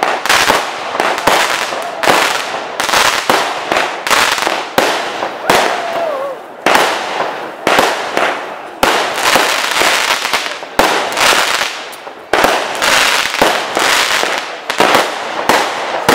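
Aerial fireworks display: shells bursting in quick succession, about one to two a second, each sharp bang trailing off before the next.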